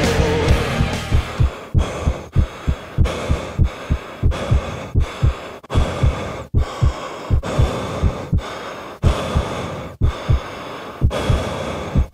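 Heartbeat-like sound in the soundtrack: regular pairs of low thumps, over a faint steady hiss.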